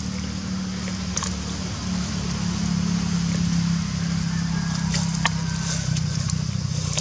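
An engine running steadily with a low hum, its pitch drifting slightly, and a few faint crackles of dry leaves.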